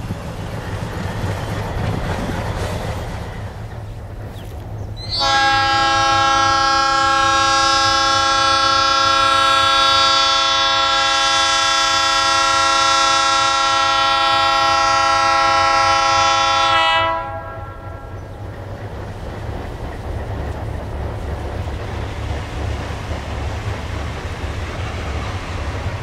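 Nathan P-2 two-chime air horn on an ALCo C420 diesel locomotive, sounded in one steady blast of about twelve seconds for a horn loudness test, starting and cutting off sharply. Before and after it, a low rumble of the locomotives and wind.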